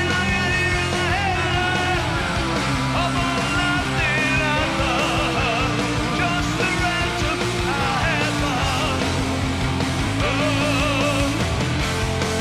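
Live hard rock band playing loudly: distorted electric guitars, bass and drums, with a male singer's voice over the band.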